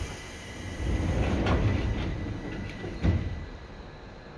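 Seibu 2000-series train's air-operated doors closing: a hiss of air, the sliding doors rumbling, and a sharp thump as they shut about three seconds in.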